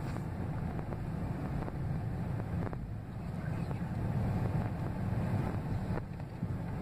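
Truck engine and road noise heard inside the cab as it drives through a parking lot: a steady low rumble.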